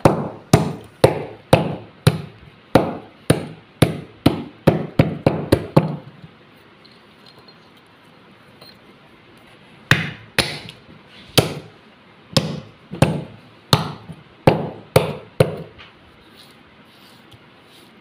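A rough stone pounding terracotta diyas (small clay oil lamps) on a tile floor, crunching them into fragments with sharp strikes about two a second. The strikes stop for about four seconds midway, then resume.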